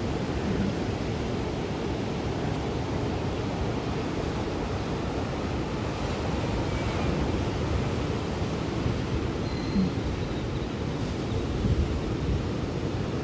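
Steady rushing of water, an even noise with no breaks.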